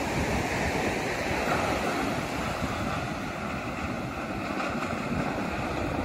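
Small sea waves breaking and washing up a sandy beach, a steady hiss of surf that swells a little about a second and a half in, with wind buffeting the microphone as a low, fluttering rumble underneath.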